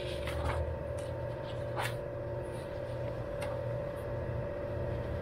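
Paper pages of a manual rustling as they are leafed through, a few short rustles, over a steady electrical hum.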